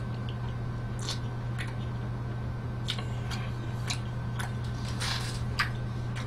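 A person chewing a big mouthful of pizza: irregular wet smacks and clicks of the mouth, over a steady low hum.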